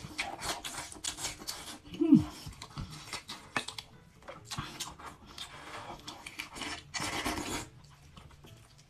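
Close-up, wet chewing and mouth sounds of someone eating tender braised beef with rice, full of small clicks and smacks, with a brief voiced hum about two seconds in.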